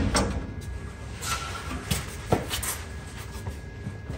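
A few light knocks and rattles, with some shuffling, as a new brake line is handled and worked into place along a pickup truck's frame rail.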